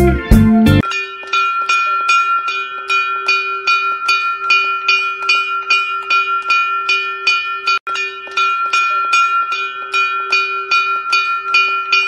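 A hanging metal bell struck over and over in a quick, even rhythm of about three strokes a second, ringing on between strokes. Music cuts off just under a second in, and the ringing breaks off for an instant about eight seconds in.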